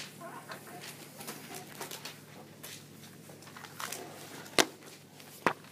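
Marker pen writing on a sheet: a string of small taps and scratches as letters are formed, over a steady low hum. Two sharp clicks, the loudest sounds, come a little after four and a half seconds and again just before the end.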